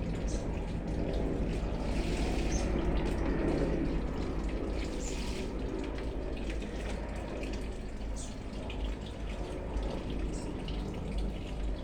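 Bell UH-1 Huey helicopter passing, its rotor and engine noise loudest about three seconds in and then slowly fading as it moves away.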